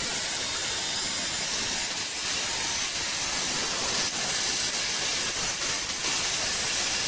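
Abrasive chop saw cutting through steel plate: the cut-off wheel grinds steadily through the metal, a continuous hissing grind with no let-up.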